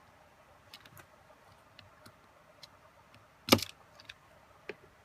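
Light clicks and ticks of a screwdriver and small metal gimbal parts being handled while a bearing is taken out of the drone gimbal's aluminium mounting plate, with one sharp, loud click about three and a half seconds in and a smaller one near the end.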